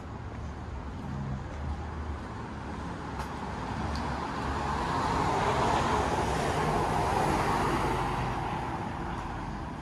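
A road vehicle passes by. Its noise swells to a peak about six or seven seconds in and then fades, over a steady low rumble of street traffic.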